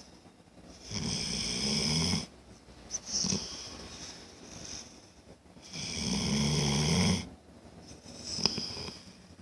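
Snoring in slow breaths: two long snores about five seconds apart, with a softer breath between them. A brief sharp click comes near the end.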